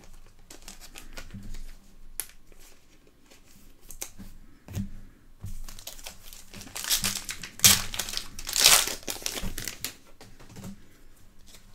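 Trading-card pack wrapper crinkling and tearing as a pack is opened, with light clicks of cards being handled. The crinkling is loudest from about seven to nine and a half seconds in.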